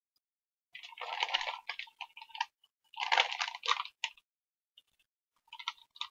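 Foil-lined Cheetos snack bag crinkling as it is handled and tilted, in three spells of rustling, the first two longest.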